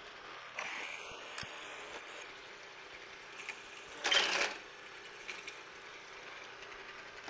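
Milling machine's steady hum, with a short metal-on-metal rattle a little after four seconds in as the drill chuck is worked to change to a 3/8 inch bit.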